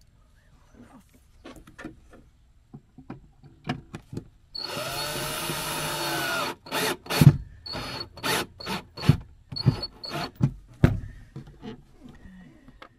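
Makita 18V cordless drill driving a screw through a fuse holder into a plywood wall: one steady run of about two seconds with the motor rising in pitch, then a string of short trigger bursts as the screw is driven home. Light taps and clicks of handling come before the drill starts.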